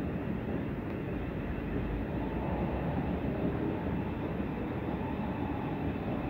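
Thameslink Class 700 electric multiple unit running into the station at low speed, a steady rumble of wheels on rail. A faint steady whine joins a little over two seconds in.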